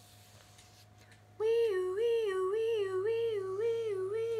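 A woman's voice imitating a fire-engine siren, a wavering two-note 'weooo' that swings up and down about twice a second, starting about a second and a half in.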